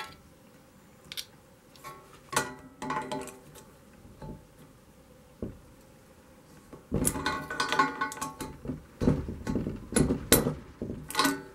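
Metal clinks and scrapes of a spanner on the brass nut of a propane regulator as it is tightened onto a gas cylinder's valve. A few scattered clinks at first, then a busier run of clanks and rattles from about seven seconds in.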